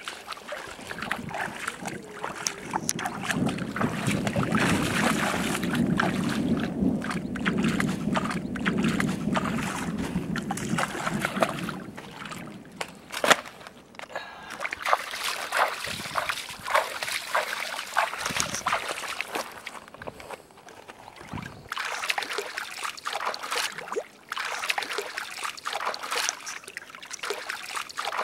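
Shallow water sloshing and splashing as a person wades and rinses a fish by hand, with scattered clicks and knocks throughout.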